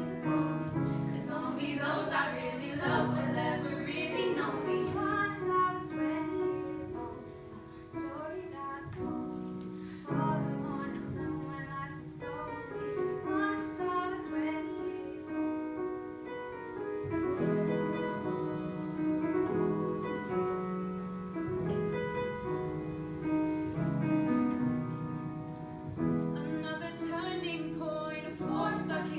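A female voice singing a song over instrumental accompaniment, with long held notes.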